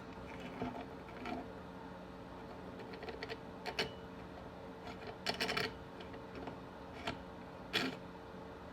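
Scattered light metallic clicks and clinks as a hand tap and tap wrench are set and worked in a chainsaw's bar stud hole, with a cluster of quick clicks about five seconds in, over a faint steady hum.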